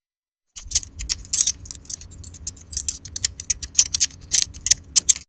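Lock picking: small metal picks clicking and scraping inside a lock cylinder. It is a fast, irregular run of light clicks that starts about half a second in and stops abruptly.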